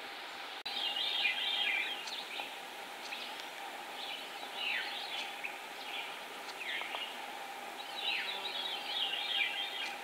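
A veery singing: a series of downward-sliding song phrases, each about a second long, repeated every few seconds.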